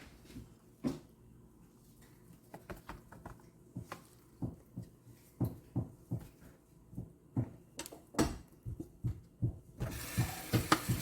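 Irregular light knocks and clicks, several a second at times. Near the end, a tap starts running.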